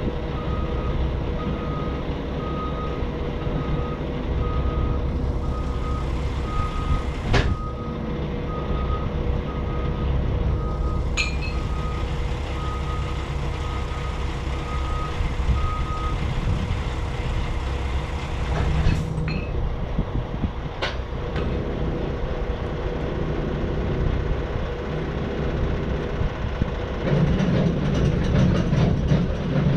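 Vehicle backup alarm beeping steadily over a diesel engine running, the beeping stopping about halfway through; a few sharp knocks, and the engine grows louder near the end.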